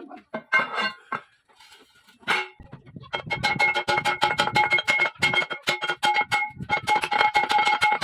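Rapid hammer blows on a four-bladed fishing-boat propeller, several a second, starting about two or three seconds in. The propeller rings with steady bell-like tones through the strikes as a wrongly set, bent blade is hammered back into line.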